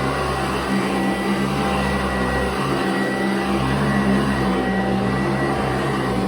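Sanitaire commercial vacuum cleaner running steadily on carpet, its motor giving a constant whine with several held tones.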